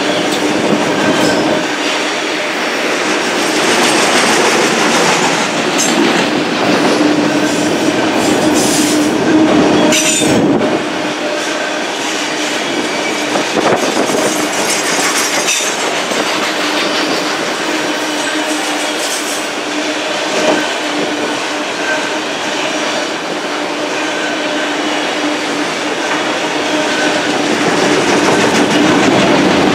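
Autorack cars of a freight train rolling past close by: a steady rumble of steel wheels on rail with a held ringing tone from the wheels, and now and then a sharp click as wheels cross rail joints.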